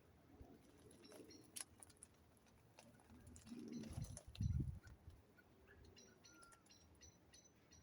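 Faint outdoor birdsong: a pigeon cooing a little past the middle, with a small bird giving a run of short high calls near the end. A brief low rumble follows the coo.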